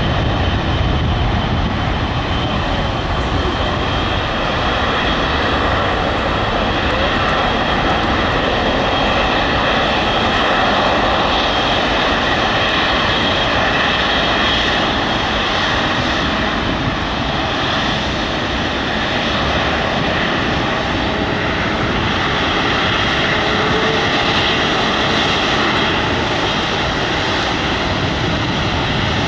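General Electric GE90-115B turbofans of a Boeing 777-300ER running at low taxi thrust: a steady jet noise with a faint, even high whine over a low rumble.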